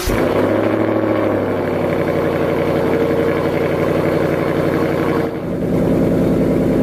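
A car engine with its revs falling over the first second, then running steadily, with a brief dip in level about five seconds in.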